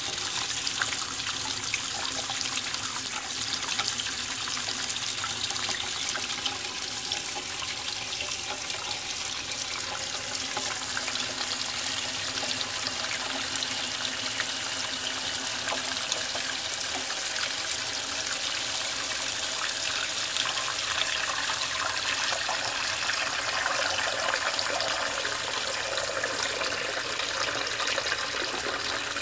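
Brass float-operated ball valve refilling an Armitage Shanks Magnia low-level toilet cistern: a steady hiss of water jetting from the valve's spout and splashing into the rising water in the tank.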